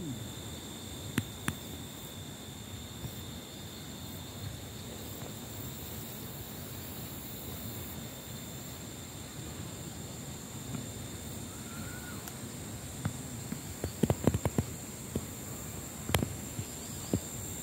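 Open-field ambience: a steady, high insect drone over a low rumbling haze, with a faint short chirp about twelve seconds in and a cluster of knocks and rustles a second later.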